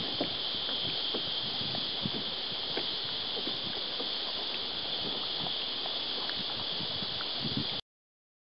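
Hands handling a freshly caught fish and its hook: irregular small taps, ticks and rustles over a steady high-pitched hiss. The sound cuts off suddenly near the end.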